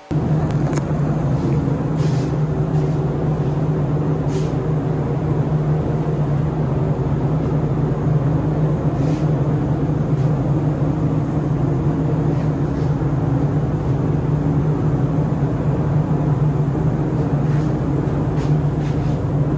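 Steady mechanical drone of spray-booth machinery, a low even hum with no change in speed, with a few short, faint hisses on top.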